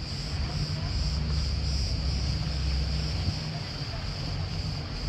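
A steady, high insect drone, over a low rumble.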